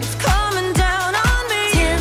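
R&B pop song playing: a melodic vocal line over a steady beat with a deep bass drum about twice a second.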